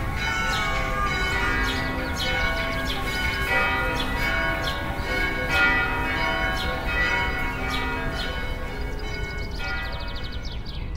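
Church bells ringing, struck over and over, several pitches sounding together, each strike ringing on into the next.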